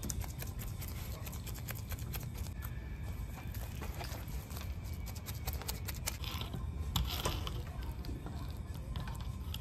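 A paintbrush dabbing, then a ribbed metal laminating roller rolling, over resin-soaked fibreglass mat as it is wetted out: a soft, uneven patter of many small clicks.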